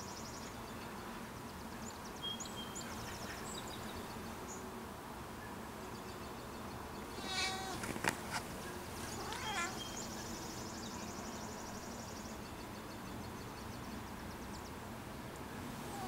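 A cat gives a short meow about seven seconds in, followed by a sharp click and a few short rising calls. Faint high bird chirps and trills sound in the background.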